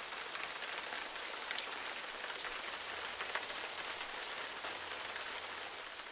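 Light rain pattering: a steady hiss with many small drop ticks.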